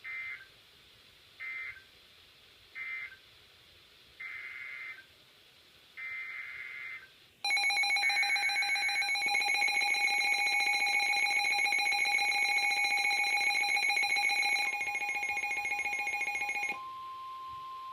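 Emergency Alert System data and alert tones. Three short warbling data bursts close one alert and two longer bursts follow. Then a loud, rapidly pulsing alarm tone in several pitches runs for about seven seconds and drops to a single steady tone near the end.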